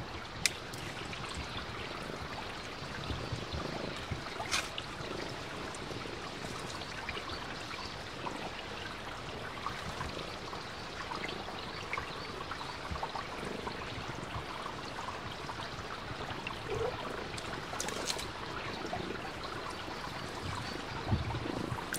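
A small stream running with a steady rush of water, broken by a few brief clicks.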